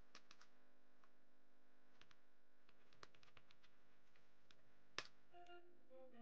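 Faint, scattered clicks of a computer keyboard and mouse at a desk, with one louder click about five seconds in. Faint pitched notes begin near the end.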